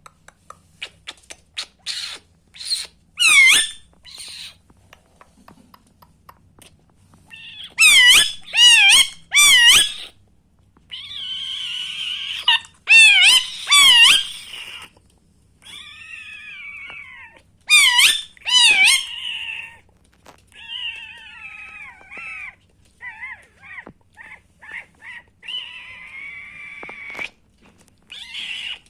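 Indian ringneck parakeet calling: loud, shrill screeches that swoop up and down in pitch, in quick groups of two or three repeated several times, with softer warbling chatter and short chirps between them.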